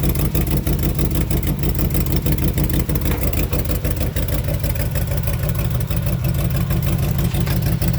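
1998 Land Rover Discovery's V8 engine idling steadily, with a rapid, even puffing of exhaust pulses. The engine has a leaking exhaust manifold gasket on the driver's side.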